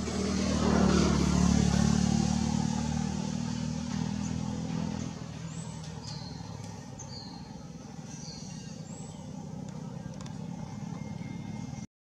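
A motor vehicle drives past: its engine grows loud in the first second or two, then fades away over the next few seconds. A few short, high, falling chirps follow.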